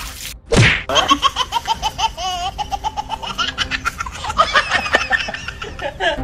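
A brief falling whoosh, then laughter in quick repeated ha-ha bursts for about five seconds.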